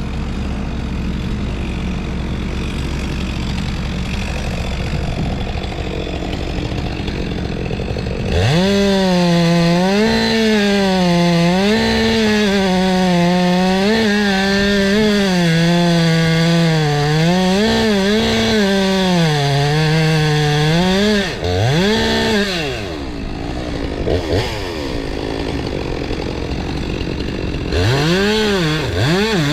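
Stihl 462 C two-stroke chainsaw idling, then revving to full throttle about eight seconds in and cutting wood, its pitch dipping and recovering as the chain loads up in the cut. Around two-thirds through it drops back, revs once briefly, then idles before revving up again near the end.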